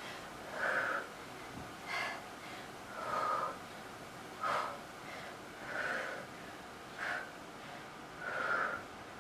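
A person breathing hard from exertion during decline push-ups: seven sharp exhales at an even pace, about one every second and a half.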